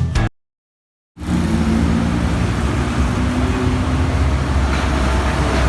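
Music cuts off, then after a moment of silence steady road traffic noise sets in: vehicle engines and tyres on a busy road.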